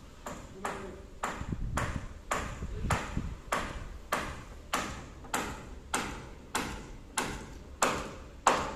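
Steel hammer driving a nail through a 2x3 timber purlin into a roof rafter: a steady run of ringing blows, a little under two a second, the last few louder.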